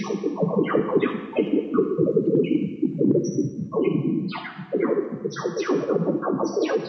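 Radio emissions from electron beams travelling between Io and Jupiter, transposed into audible sound. A dense crackle with short, abruptly starting chirps, several a second, that give the impression of birds singing.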